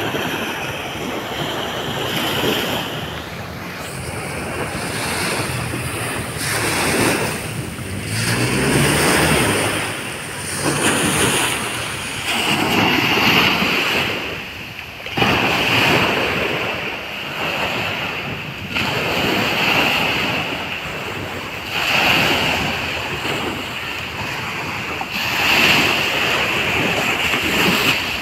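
Small waves breaking and washing up on a sandy beach, the surf swelling and falling back every few seconds, with wind buffeting the microphone.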